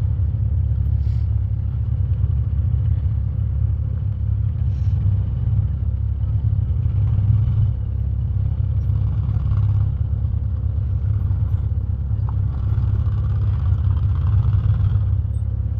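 Six-seat Honda Pioneer side-by-side's engine working under load as it crawls up a rock ledge, a steady low rumble.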